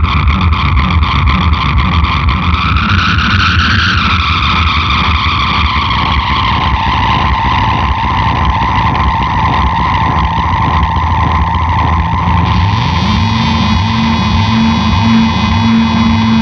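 SG electric guitar through a Big Muff fuzz and MXR Analog Delay: a loud, sustained, distorted drone layered with echoing delay repeats. Its pitch swells up and slides back down about three to four seconds in, and a new held note comes in near the end.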